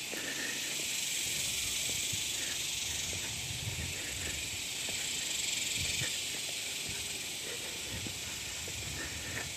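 Steady high, hissing chorus of evening insects, with faint low thuds of footsteps on a dirt trail.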